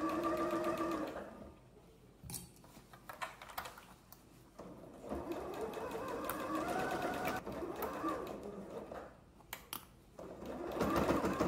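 Computerized sewing machine stitching through several layers of a tote bag. The motor whines in two runs: one that stops about a second in, then another from about five seconds in that picks up slightly in pitch. A few light clicks fall in the lull between them.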